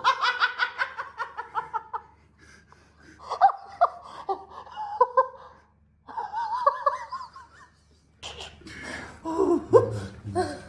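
A person laughing hard in several bouts with short pauses between, the first a rapid run of pulses. It is a reaction to a chiropractic adjustment just given.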